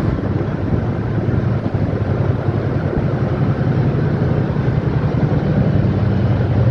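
Steady low drone of a cargo ship's engines and machinery under way, over a constant rushing noise; the hum grows stronger about halfway through.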